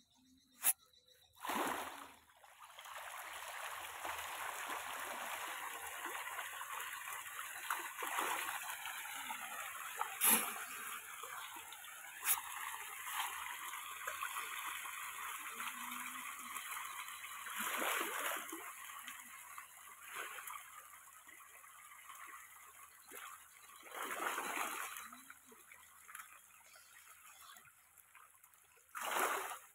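A crowd of pangasius catfish thrashing at the surface of a pond as they feed, a dense splashing hiss. It starts a couple of seconds in and thins out in the second half, with a few louder sharp splashes.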